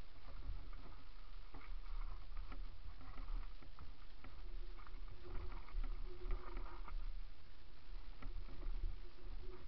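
Mountain bike riding over a loose gravel trail: tyres crunching and the bike rattling, with many scattered clicks over a steady low rumble.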